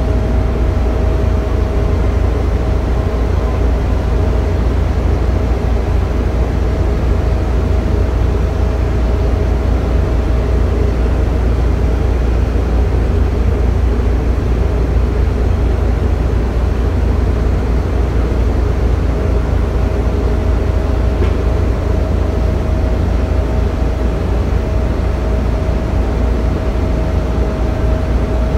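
Heavy shipyard machinery running: a steady, loud, deep rumble with a thin steady whine over it that weakens around the middle and returns later.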